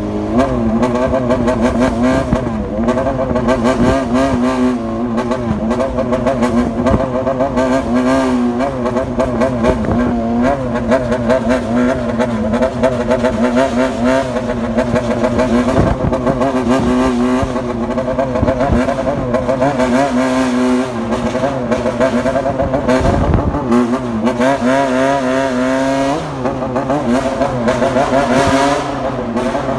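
Yamaha XJR400R's four-cylinder engine running through a Waltz Kikai aftermarket exhaust while riding, its pitch rising and falling again and again as the throttle is worked.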